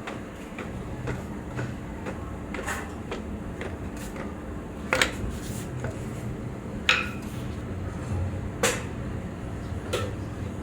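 Hard knocks on wood and metal during shuttle-making: about five sharp knocks spaced roughly two seconds apart, the loudest about five, seven and nine seconds in, over a steady low workshop hum.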